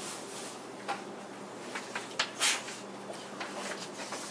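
Small handling noises: a few light clicks and knocks and a short rustle, over a steady faint hiss and low hum.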